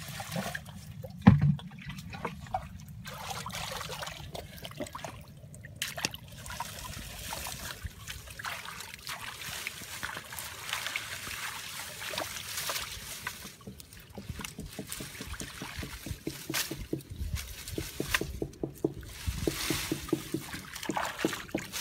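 Muddy water trickling and sloshing, with scattered small knocks and rustles and one loud thump about a second in.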